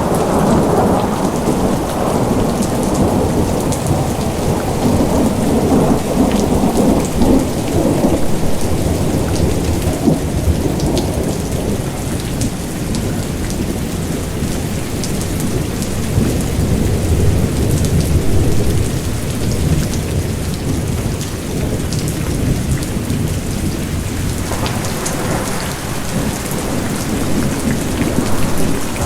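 Steady rain with a fine patter of drops over a low rolling rumble of thunder; the rumble eases through the middle and swells again near the end.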